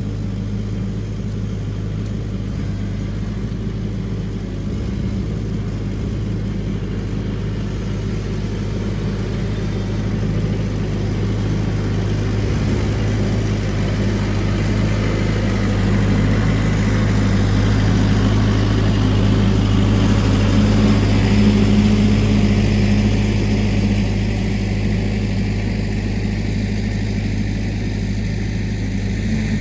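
An engine running steadily, growing somewhat louder toward the middle and easing off near the end.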